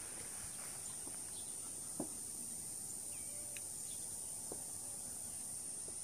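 Steady high-pitched buzz of an insect chorus, with a few faint ticks and one sharper click about two seconds in.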